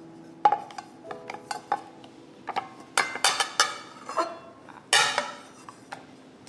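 Knife and ceramic plate clattering on a wooden chopping board: a string of sharp knocks and short ringing clinks, the loudest bunched about three seconds in and again about five seconds in.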